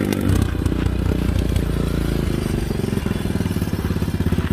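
ATV engine running while being ridden, then easing off near the end into a slower, evenly pulsing beat as it comes toward idle.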